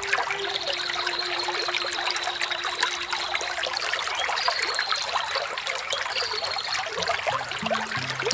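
Small waterfall splashing and trickling in a steady rush of water, under soft background music. A held note sounds through the first half, and low notes come in near the end.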